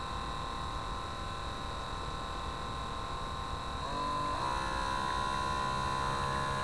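Brushed electric motor of a radio-controlled model boat whining steadily, heard close up from the boat's own deck. About four seconds in, the whine slides to new pitches as the throttle is changed.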